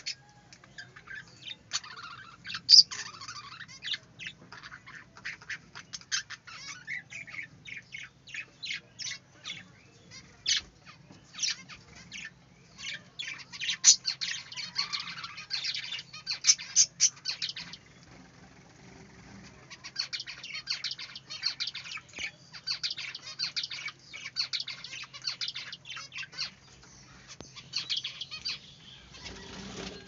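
Budgerigars chattering: a rapid stream of short high chirps with a brief lull a little past the middle.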